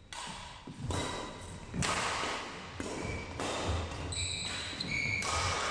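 Badminton rally: rackets hitting the shuttlecock as sharp smacks a second or more apart, echoing in a large hall, with footsteps thudding and shoes squeaking on the wooden court floor.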